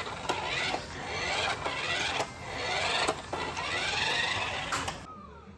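Plastic toy car rolled back and forth across a floor mat, its wheels whirring in repeated passes about once a second, with small knocks between passes; the rolling stops near the end.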